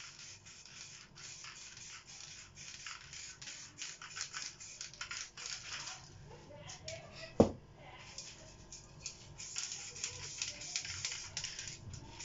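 Aerosol spray-paint can hissing in many short bursts. The spraying pauses briefly around a single sharp knock about seven seconds in.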